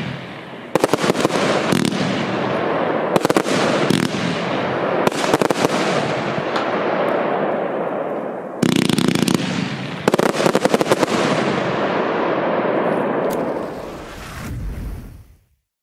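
A 130-shot, 25/30 mm consumer firework battery (Piromax PXC211) firing volleys of rapid shots, each cluster trailing into a dense wash of bursts and crackle. Near the end the firing dies away into a low rumble that cuts off suddenly.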